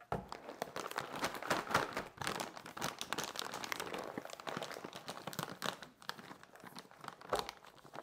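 Mylar foil bag crinkling and crackling as it is handled, folded and pressed during heat-sealing with a clothes iron. The crackling is dense and irregular for most of the stretch, then thins out, with one sharper crackle near the end.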